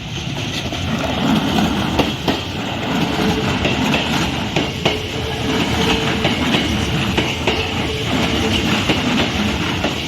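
Electric train passing over rail joints: its wheels give paired clacks every couple of seconds over the steady rumble of the moving train.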